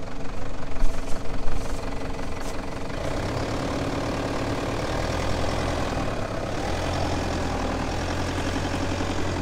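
A four-wheel drive's engine running at low revs, growing louder about three seconds in and again after about six seconds. A few sharp knocks in the first two seconds.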